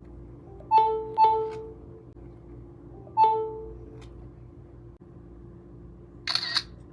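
iPhone system sounds: three short chime notes, two close together and a third about two seconds later. Near the end comes the iPhone camera shutter click.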